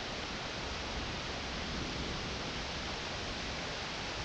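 Steady rushing noise of heavy rain and high, fast river water, even throughout with no distinct events.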